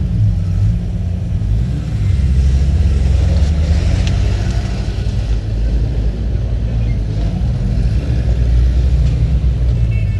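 Quaddragon off-road buggy engine running, a steady low rumble.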